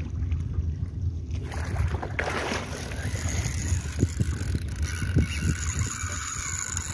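Wind rumbling on the microphone aboard an open boat on the water, with a rushing hiss joining it about a second and a half in.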